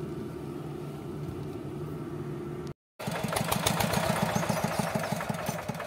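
Low, steady rumble of a car cabin on a dirt road. After a sudden cut about three seconds in, a Yanmar 8 hp single-cylinder diesel on a converted walk-behind tractor runs with a fast, even beat.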